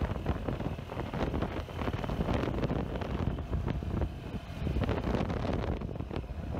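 Wind buffeting the microphone from inside a moving vehicle on a rough dirt road, over a low rumble of engine and tyres, with uneven jolts and rattles from the bumpy road.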